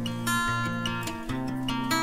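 Background music: plucked acoustic guitar playing a melody over bass notes.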